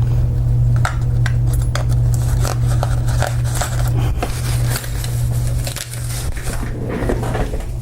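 Irregular small metal clicks and clinks of hand tools and a door knob being handled, over a steady low electrical hum.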